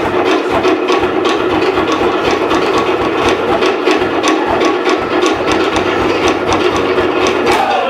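Cook Islands wooden slit drums (pate) beaten in a fast, steady rhythm of sharp wooden strokes.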